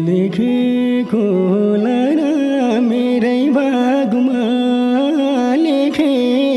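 Live Nepali lok dohori music: a continuous melodic line bending and ornamenting in pitch over a steady held drone, with little or no drumming.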